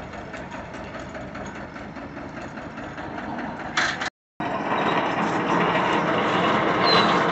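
Tractor engine running steadily, powering a tractor-mounted borewell rig that is lifting pipes out of the well. The sound drops out briefly about four seconds in and comes back louder.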